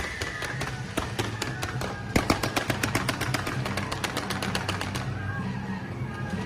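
Firecrackers popping in quick, irregular cracks, sparse at first and then a dense rapid string between about two and five seconds in, over background music.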